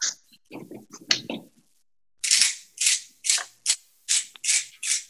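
Hand-twisted pepper mill grinding black pepper, a rasping crunch with each twist, about seven quick twists in a row starting about two seconds in.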